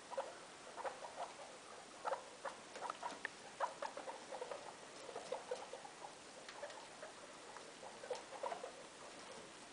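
Guinea pigs making short squeaks and chirps in irregular clusters, thinning out near the end.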